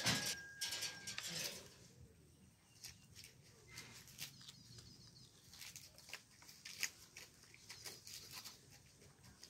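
Scattered light clicks and rustles as a young macaque clambers over and tugs at a bunch of green coconuts and their dry stems, busiest in the first second and a half.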